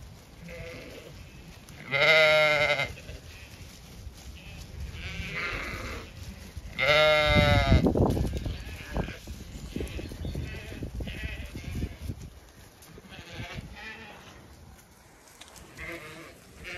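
Zwartbles sheep bleating: two loud, drawn-out bleats about two and seven seconds in, with fainter bleats between and after them.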